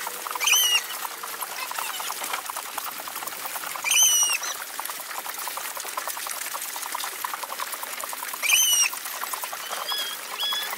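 Calves sucking and slurping milk at a teat feeder, a busy, wet clicking. Three short, high squawks, about four seconds apart, are the loudest sounds.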